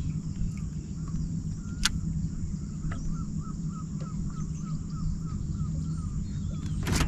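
A bird calling outdoors in a quick series of short repeated notes, about four a second, over a steady low hum. A single sharp click comes about two seconds in, and a brief loud rush of noise comes at the very end.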